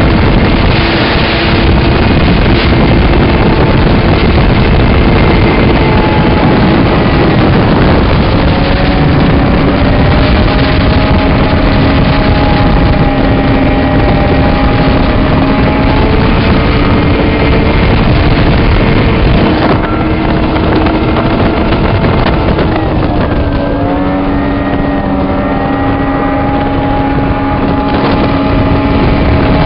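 Snowmobile engine running steadily at speed, with the clatter and rush of the ride close to the microphone. The engine note climbs a little about a third of the way in, and dips and recovers again about three quarters of the way through.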